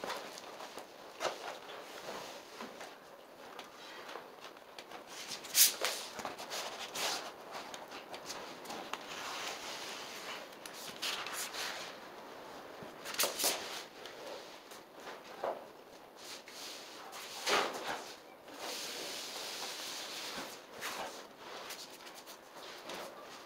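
Vinyl sheet flooring being worked by hand: rustling and scraping of the sheet while a utility knife trims it along the wall, with shuffling and footsteps on the floor. A few sharper snaps or knocks stand out, three of them loudest.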